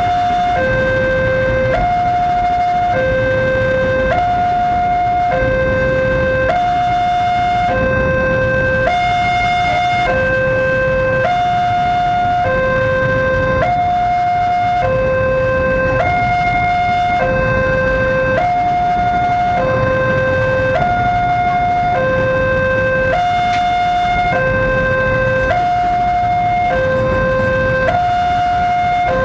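Railway level-crossing warning alarm sounding a steady two-tone hi-lo, switching pitch about once a second, over the low rumble of a passing freight train of container wagons.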